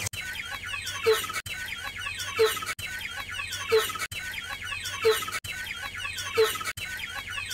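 Chickens clucking. The same short stretch of clucking repeats about every second and a third, with a brief cut at each repeat.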